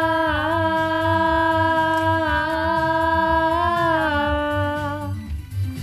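A girl's voice holding one long sung note over a backing track with a steady low beat; the note steps down in pitch about four seconds in and breaks off near the end.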